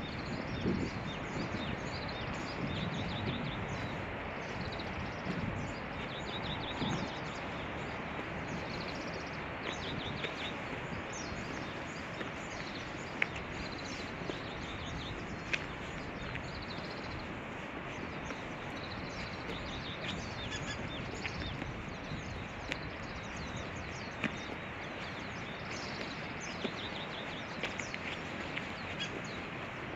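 Outdoor park ambience: a steady background hiss with small birds chirping and trilling again and again throughout.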